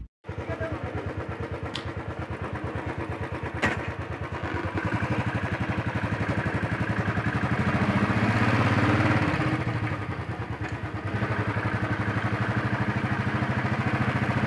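Royal Enfield Bullet's single-cylinder four-stroke engine running as the motorcycle rides along, with a steady pulsing exhaust beat. It gets louder from about four seconds in, eases near ten seconds, then runs steadily.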